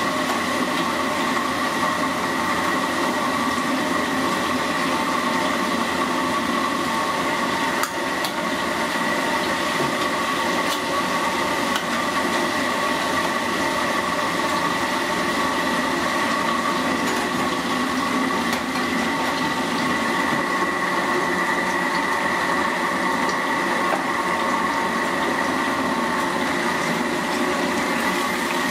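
Mantis shrimp deep-frying in a wok of hot oil: steady sizzling and bubbling over the roar of a gas burner, with a few sharp metal clinks of the ladle and spatula against the wok.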